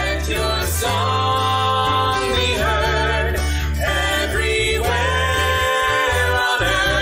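A man and two women singing a worship song together in long held notes over instrumental accompaniment with a steady bass.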